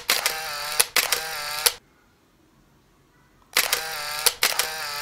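Camera shutter sound effect: a sharp click followed by a short whirring wind, repeated about every 0.8 s, with a near-silent pause of under two seconds in the middle.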